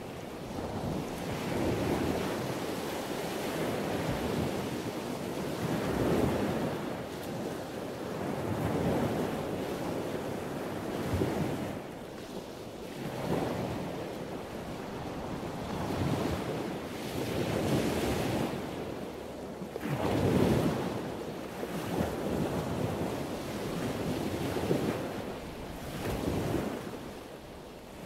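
Sea waves washing in, each surge swelling and falling back about every two seconds.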